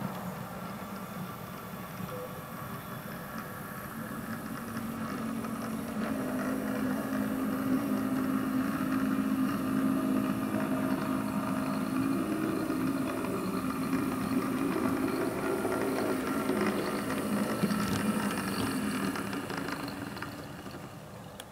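Model diesel shunter running along OO gauge track, its diesel engine sound from a DCC sound decoder carrying a steady low note with wheel and motor noise. It grows louder as the loco comes closer, then drops away just before the end.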